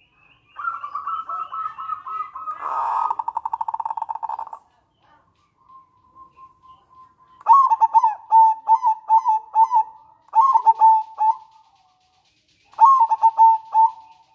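Zebra dove (perkutut) calling. In the first few seconds there is a rapid rattling trill, the 'nretek'. About halfway through come bursts of staccato cooing notes, the 'manggung', and a shorter burst follows near the end.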